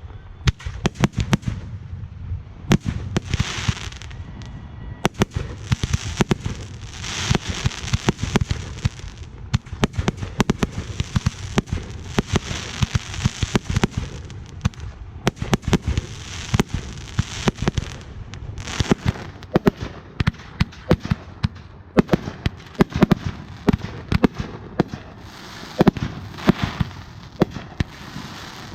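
Fireworks going off: a dense, unbroken string of sharp pops and bangs, with stretches of hissing in between.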